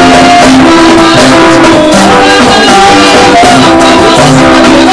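Live gospel band music: electronic keyboard holding chords that step from note to note over a drum kit keeping a steady beat, loud throughout.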